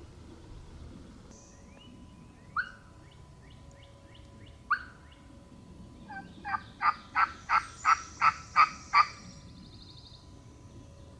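Turkey calling: two single sharp notes, then a run of about nine evenly spaced yelps, about three a second, with faint songbird notes in the background.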